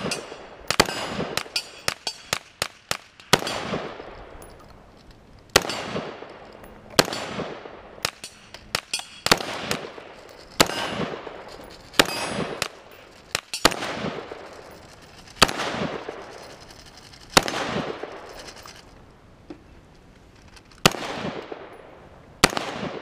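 Rifle fired in steady succession, about a dozen shots one every second or two, each followed by a long rolling echo, with smaller sharp metallic clinks between some shots.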